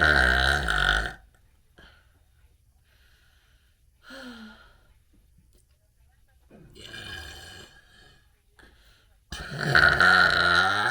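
A person burping: two long, loud burps, one at the start and one near the end, with two softer burps between.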